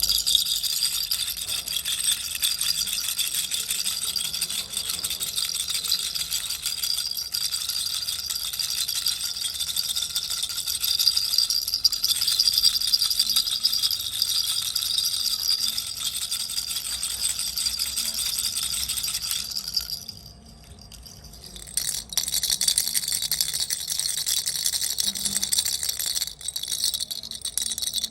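Baby's toy rattle shaken steadily, a dense, high, fast rattling that stops for about two seconds roughly two-thirds of the way through, then starts again.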